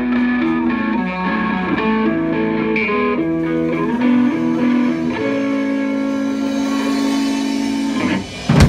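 Stratocaster-style electric guitar played through a small amp: a run of single notes, then one note held for about three seconds. A sudden loud hit comes near the end.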